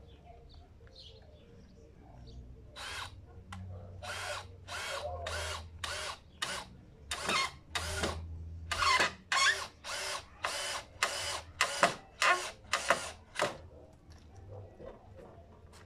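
Cordless drill driving screws into the wooden rungs of a ladder, its motor run in about twenty short bursts, each under half a second. The bursts start about three seconds in and stop shortly before the end.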